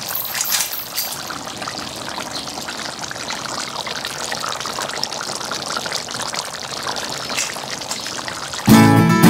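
Thick coconut-milk braise of pork hock and jackfruit simmering in a wok: a steady, crackly bubbling. Guitar music comes in loudly near the end.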